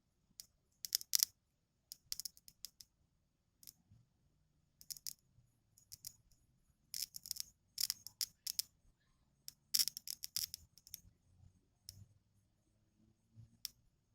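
Short-circuit arcing: a thin wire touched again and again to a lawnmower battery's connection through jumper cables, crackling in irregular clusters of sharp snaps. The loudest clusters come about a second in and again from about seven to ten seconds in.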